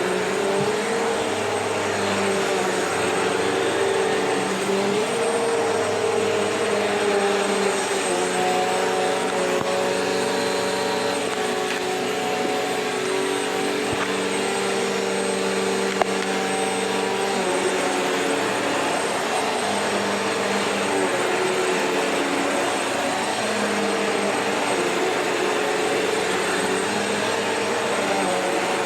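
Vacuum cleaner running steadily over old, worn carpet, its motor hum shifting slightly in pitch as it is pushed. There is a single sharp click about halfway through.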